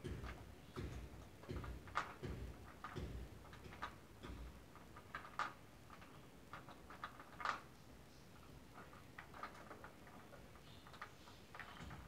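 Budgerigar on the cage floor pecking at and nudging its plastic toy balls: irregular light clicks and taps, sparser in the second half.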